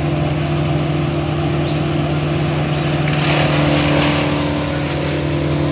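A work truck's engine running steadily at a constant pitch. About three seconds in, a rougher mechanical noise joins it for a couple of seconds.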